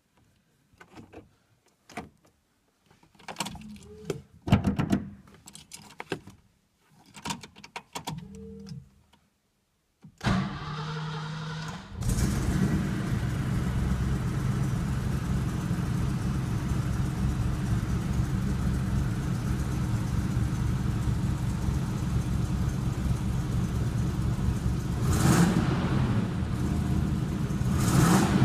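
A 1972 Mercedes-Benz 350 SLC's 3.5-litre M116 V8 cold-started. A few clicks and knocks come first, then the starter cranks for about two seconds. The engine catches and settles into a steady fast idle, with two brief revs near the end.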